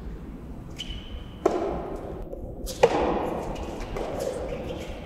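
Two sharp strikes of soft tennis rackets on the rubber ball, about a second and a half apart, each followed by the echo of the indoor hall. A short high squeak comes just before the first strike.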